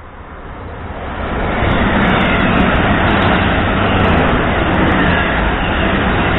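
Passenger train approaching and passing through the station at speed: a rushing noise that builds over the first second or so, then stays loud and steady as the coaches go by.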